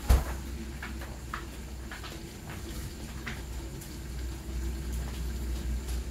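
Chicken sautéing and simmering in a covered pan under an aluminium lid, with scattered faint pops and crackles over a low steady hum. A single sharp knock sounds right at the start.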